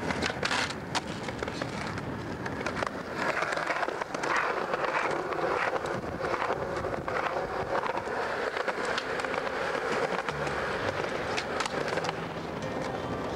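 Skateboard on concrete: the wheels rolling with a rough, continuous noise, broken by many sharp clicks and clacks of the board.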